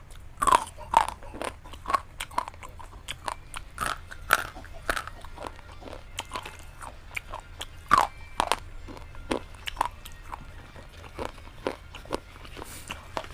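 Close-up biting and chewing of a fine, crunchy Shubham-brand item: a run of sharp, irregular crunches with quieter chewing between them. The loudest crunch comes about eight seconds in.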